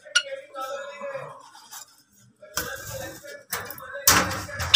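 Sharp clinks and knocks of handling against a wire bird cage: one click right at the start, then a few louder knocks in the second half, under a faint murmur of voices.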